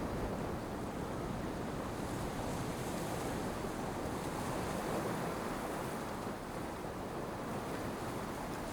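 Steady rush of open-ocean waves and wind, with no distinct events.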